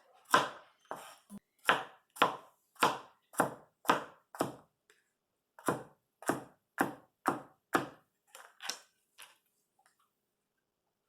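Knife chopping carrots on a cutting board: steady sharp chops at about two a second, with a short pause about five seconds in and lighter chops near the end.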